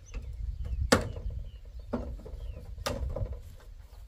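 Three sharp knocks about a second apart, the first the loudest: hammering at the edge of a corrugated roof sheet. Faint bird chirps sound in the background.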